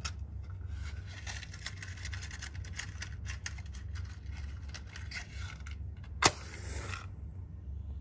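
Small clicking and rattling of matches being handled in a matchbox, then a wooden match struck once, about six seconds in, flaring with a short hiss.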